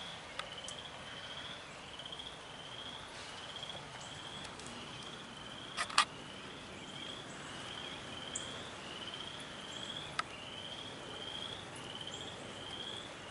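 A frog calling over and over from the flooded ground, a short rising chirp about one and a half times a second, over a faint steady hiss. A sharp tap about six seconds in is the loudest moment.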